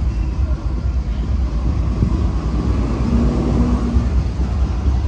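Wind buffeting the microphone: a loud, unsteady low rumble, with a brief low steady hum about three seconds in.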